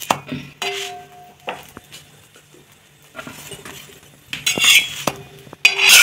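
Flat steel spatula scraping and clinking against a griddle (tawa) as a stuffed paratha is flipped and pressed, with scattered sharp clicks, a couple of them ringing briefly, and short scraping rushes about four and a half seconds in and near the end.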